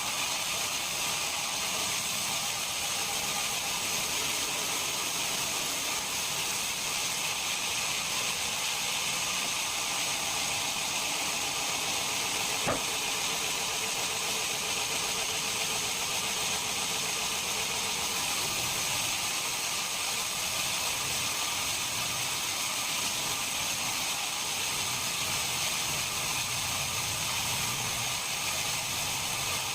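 Steady machine noise: an even hiss with a faint high whine, unchanging throughout, with a single sharp click a little before halfway.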